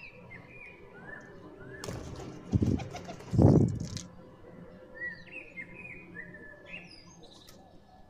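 A rush of bird wings flapping about two to four seconds in, with two loud flaps, as the feeding birds fly up from the grain. Short chirping calls from small birds come and go around it, most of them in the second half.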